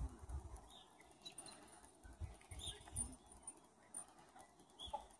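Faint outdoor ambience: a low wind rumble on the microphone that comes and goes, with a few faint, short bird chirps.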